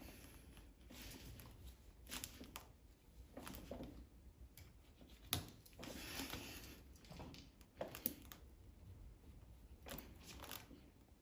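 Faint scattered clicks and short rustling handling noises from a tire-plug insertion fork pushing a rubber repair strip into a tire puncture.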